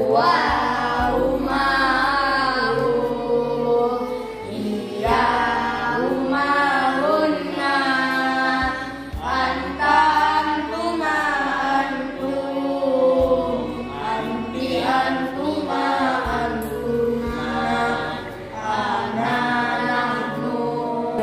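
Melodic chanted singing with long held notes that bend in pitch, over a low sustained bass note that shifts every few seconds.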